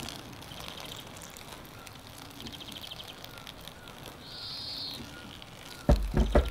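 Outdoor countryside ambience: a few small bird chirps and an insect's rapid trill over a steady background. Near the end, strong gusts of wind buffet the microphone in loud low rumbles.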